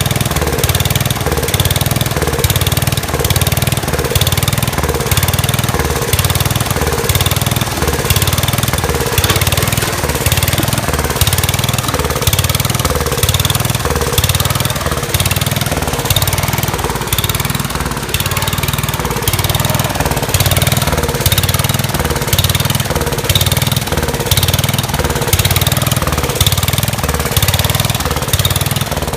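Kohler K241 single-cylinder engine on a Gravely Commercial 10 tractor running steadily, freshly restarted after a carburettor rebuild. Its note pulses evenly about twice a second.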